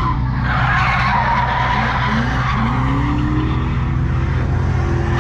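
Ford Falcon drift car's engine running hard while its tyres squeal and skid through a drift, heard from inside the car; the revs climb in the middle of the stretch.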